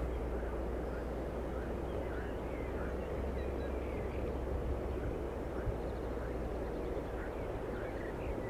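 Riverside outdoor ambience: a steady wash of noise over a constant low rumble, with many short faint chirping calls scattered throughout.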